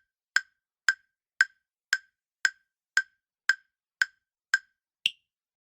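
Countdown-timer ticking sound effect: sharp, evenly spaced wood-block-like ticks about two a second, ending with a single higher-pitched tick about five seconds in that marks time up.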